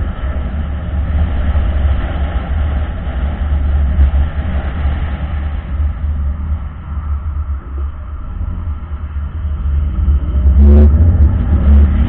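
Car cabin road and engine noise picked up by a dashcam's microphone: a steady low rumble that dips in the middle and grows louder near the end as the car picks up speed.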